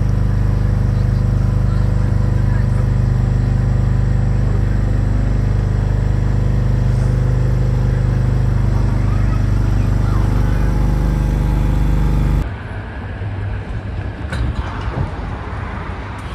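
Open boat tram running, heard from on board: a loud, steady, low rumble that cuts off abruptly about twelve seconds in, giving way to quieter mixed sound.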